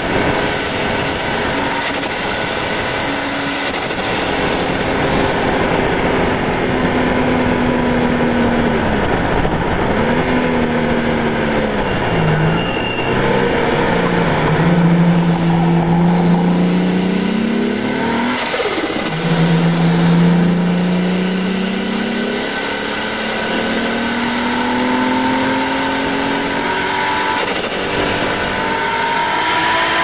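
Nissan R32 Skyline's turbocharged RB20DET straight-six, running on E85, pulling hard around a circuit. Its pitch climbs through each gear and drops at each shift, with a deeper dip about twelve seconds in as it slows for a corner before accelerating again. Rushing wind and road noise run underneath.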